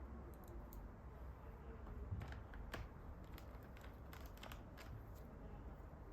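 Scattered small plastic clicks and taps, irregular and faint, from a Logitech wireless keyboard's parts being handled and fitted together.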